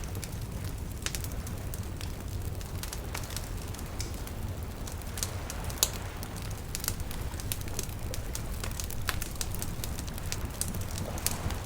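Wood campfire crackling, with irregular sharp pops and snaps over a low steady rumble of the flames. One louder pop comes about six seconds in.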